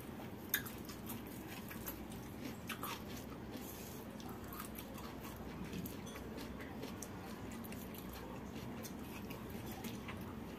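Quiet chewing of rice and fried fish eaten by hand, with a few faint clicks as fingers pick food from a steel bowl, over a low steady room hum.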